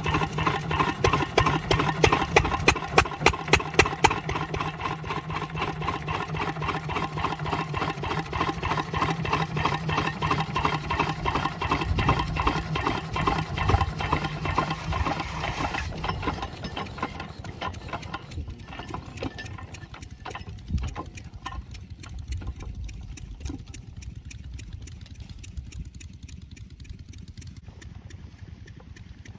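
An 8 hp single-cylinder diesel water-pump engine running with a steady, even knocking beat. About two-thirds of the way through it grows much quieter, and weaker pulses carry on.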